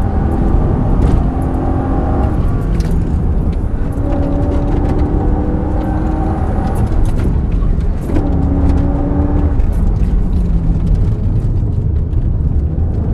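A Mercedes-Benz SL500's V8 engine pulling hard under acceleration, heard from inside the car over heavy road and wind noise. Its pitch climbs with the revs and drops back at gear changes, most clearly about eight seconds in.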